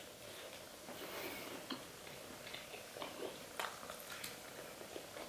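Faint chewing and biting on a crispy fried chicken drumette: wet mouth sounds with scattered sharp crunches, two of them stronger about three seconds in.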